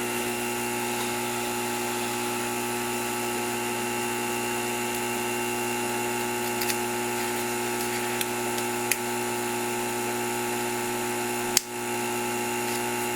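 Steady hum of a small electric motor or fan running at a constant speed, with a few faint light clicks and one sharper click about eleven and a half seconds in.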